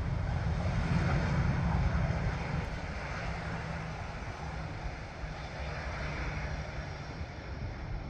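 Jet engines of a twin-engine airliner on the runway, heard at a distance as a steady broad roar and rumble that swells about a second in and then slowly fades.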